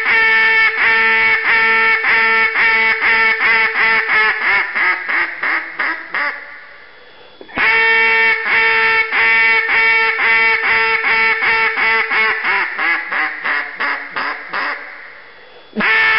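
Committed Custom Calls ThrowBack "Small Bore" hedge wood duck call blown in a highball (hail call) imitating a mallard hen: long, loud strings of quacks, each starting high and loud and stepping down in pitch and volume as it tapers off. Two full strings are heard, the second beginning about halfway through, and a third starts near the end.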